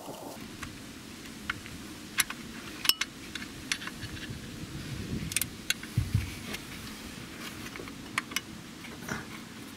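Irregular light metallic clicks and clinks of hand tools and metal engine parts being worked on and handled, over a low steady background noise.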